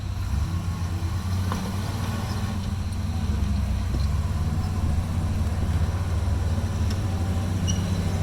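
Jeep engine running at low revs: a steady low rumble that strengthens slightly partway through, with a few faint knocks.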